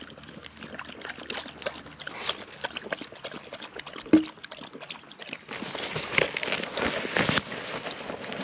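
Drinking water being poured and trickling, with small irregular splashes and clicks, running heavier from about five and a half seconds in. A single sharp knock about four seconds in.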